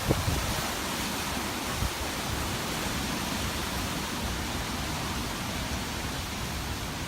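Steady rushing noise of hurricane-force wind, an even hiss without gusts or microphone buffeting.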